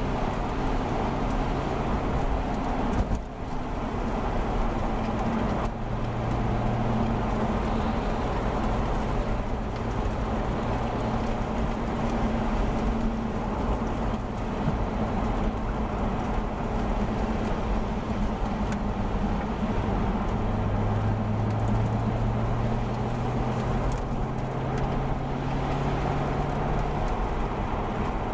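Car interior sound while driving: a steady engine hum, shifting a little in pitch as the speed changes, over the hiss of tyres on a wet road.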